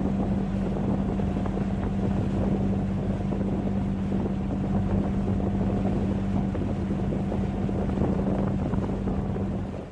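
A small tour boat's motor running steadily with an even hum, over rushing water and wind noise on the microphone; the level drops suddenly near the end.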